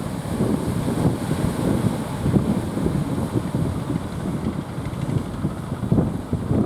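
Strong wind buffeting the microphone in rough, uneven gusts, over the sound of surf.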